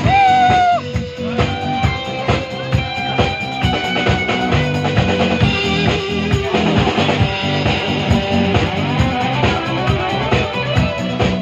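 Instrumental break in a rock song: guitar playing melodic lines over a steady drum beat.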